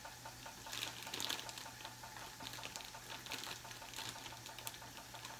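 Faint, irregular sizzling and crackling of food frying in skillets: rye bread toasting in a little leftover fat, over a steady low hum.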